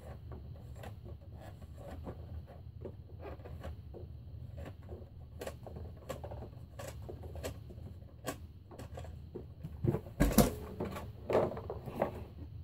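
Irregular light clicks, taps and rustles of small objects being handled, over a steady low room hum, with a louder bout of knocking and rustling about ten seconds in.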